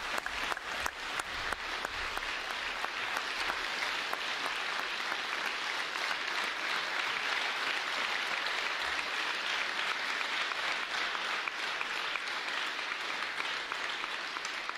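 Audience applauding steadily, a dense patter of many hands clapping at once, greeting a performer as he comes onto the stage.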